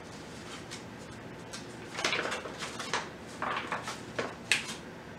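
A paper bag of flour being unfolded and opened by hand, crinkling and rustling in short bursts from about two seconds in.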